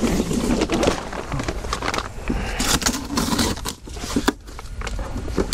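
Rummaging through cardboard boxes and plastic packaging: rustling and crinkling with scattered knocks and clatters as bags and bottles are moved, and a burst of louder crinkling about halfway through.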